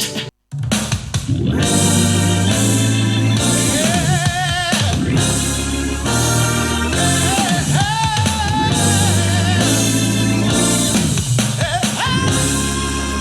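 A song with a sung vocal over drums, bass and guitar, played back through an Amazon Echo smart speaker as a sound test. It starts after a brief silent gap just after the start.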